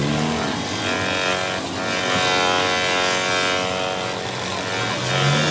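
Bench polishing motor running with a steady hum while its buffing wheel rubs against the plastic lens of a car headlight, polishing the fogged lens clear.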